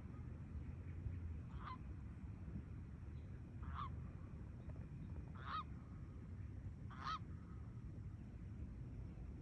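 Geese honking: four short, faint single honks about two seconds apart, over a steady low background rumble.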